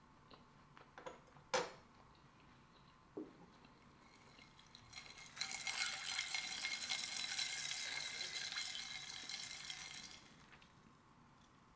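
A few light clicks of a utensil on a plate, then about five seconds of a steady fizzing hiss with faint ringing tones from a stemmed glass of drink as it is lifted.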